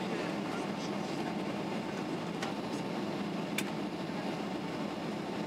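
Steady cabin noise of a Boeing 767-200 on approach with flaps down: the even rumble of engines and airflow heard through the fuselage. Two short clicks come about two and a half and three and a half seconds in.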